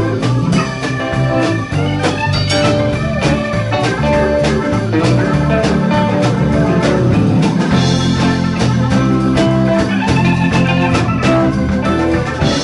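Live rock band playing on electric guitars, bass guitar and drum kit, continuous and steady in loudness.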